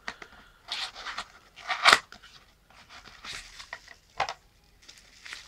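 Crinkling and tearing handling noises, a few short irregular bursts, with the sharpest and loudest just under two seconds in and another just after four seconds.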